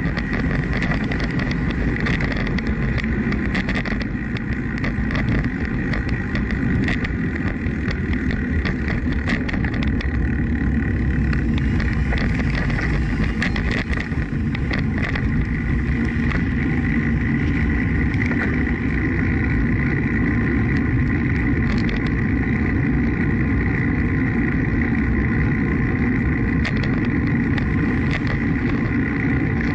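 Steady rumble of wind on the microphone and tyre noise from a bicycle riding beside a busy road, with car traffic passing, a faint steady high whine and occasional small clicks and rattles.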